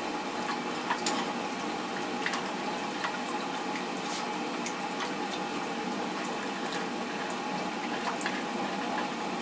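A steady hiss with a few light clicks and taps scattered through it, as hands handle the metal element flange and nuts on the underside of an electric water heater.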